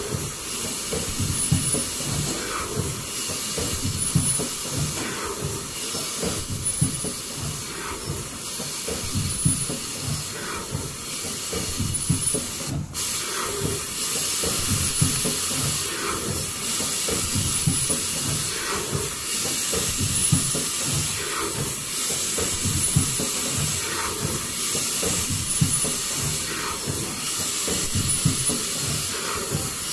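Automatic folding-mask production machine running: a steady hiss over a fast mechanical clatter, with a faint repeating cycle about every two and a half seconds.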